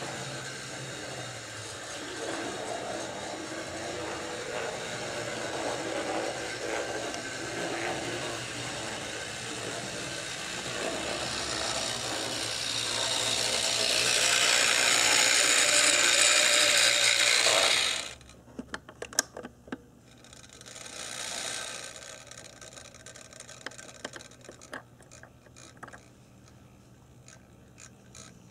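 HO-scale brass model of a Canadian Pacific 4-4-4 Jubilee steam locomotive running on the layout track, its motor and gearing whirring and wheels rolling on the rails. The noise is loudest as the engine passes close by, then cuts off suddenly as it stops, leaving a few small clicks.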